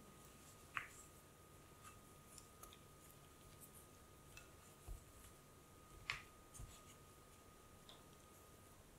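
Faint, sparse clicks and taps of a silicone spatula against a glass bowl while mixing and pressing together a stiff, shaggy bread dough, with a few soft low thumps. The sharpest click comes about six seconds in, over a faint steady high tone.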